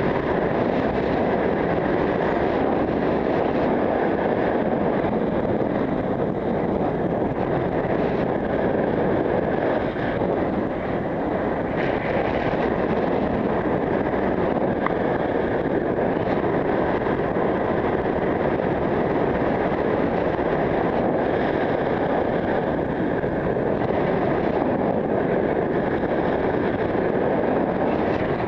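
Steady rush of wind over a helmet camera's microphone from riding a road bike at about 20 mph.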